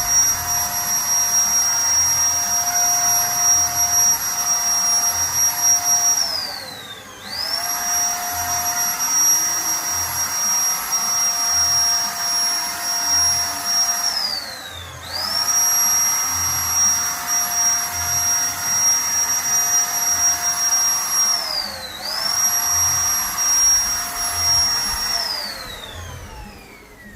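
Zipper electric paint spray gun's motor running with a steady high whine. Three times it briefly spins down, its pitch falling, then spins straight back up. Near the end it winds down again.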